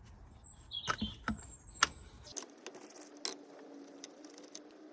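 Metal hand tools clicking and clinking on the engine as the spark plugs are undone and taken out, a few sharp clicks with the loudest about two seconds in.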